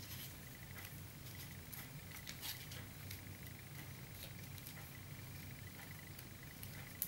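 Faint rustling and light clicking of rolled paper tubes, made from advertising leaflets, as they are woven by hand through the spokes of a paper basket, over a steady low hum. One sharper click comes near the end.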